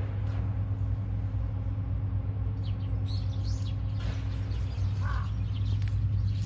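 Small birds chirping a few short times, about halfway through and again a couple of seconds later, over a steady low rumble.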